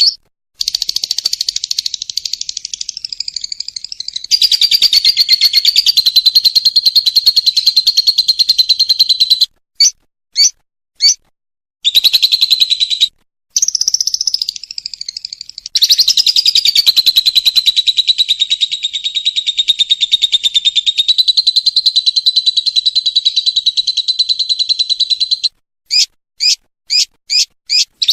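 Lovebird singing its 'ngekek' song: long, fast, rattling trills lasting many seconds each. Two long runs are broken by a few short chirps, and a quick string of about five separate chirps comes near the end.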